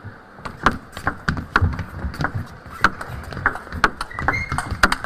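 A table tennis rally: the celluloid ball clicking sharply off the rackets and the table in quick succession, starting about half a second in.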